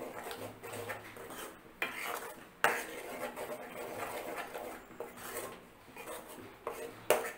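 Steel spoon stirring and scraping thick tomato and onion gravy paste around a metal pan, with sharp clinks of spoon on pan, the loudest about two and a half seconds in and again near the end.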